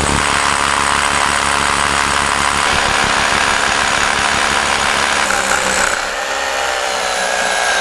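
Corded SDS rotary hammer drill boring an anchor hole into a concrete floor slab, running steadily under load throughout.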